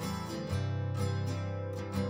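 Background music: a gentle instrumental with plucked acoustic guitar notes.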